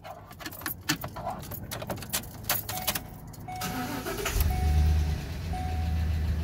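Keys jangle and click in the ignition of a Ford Expedition. About three and a half seconds in, the starter cranks briefly and the engine catches and settles into a steady idle. Over it the door-ajar chime beeps in short repeated tones.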